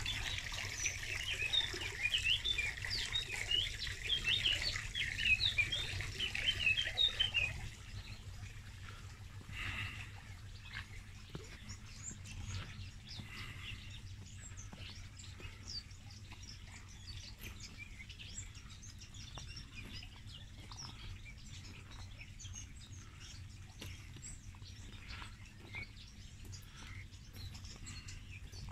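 Small birds chirping and twittering, a busy, loud chorus for about the first seven seconds, then fainter and more scattered calls. A steady low rumble runs underneath.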